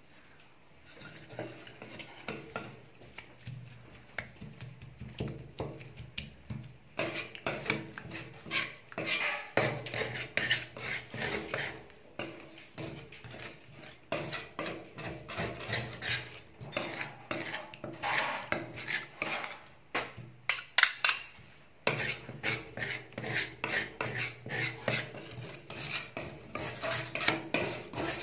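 Two metal spatulas scraping and chopping on the steel plate of a rolled-ice-cream pan, working mint leaves and dates into the cream base. It is a rapid run of taps and scrapes, softer at first and louder from about a quarter of the way in, with a couple of short breaks.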